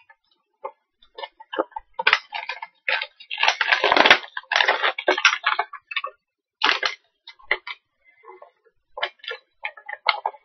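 Blind-box miniature packaging being handled and torn open: irregular crackling and crinkling of cardboard and plastic, with a denser, louder burst of crackling about halfway through.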